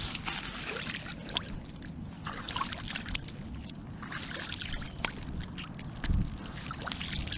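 Water sloshing and splashing as a released carp is let go and swims off, with scattered small clicks and a low thud about six seconds in.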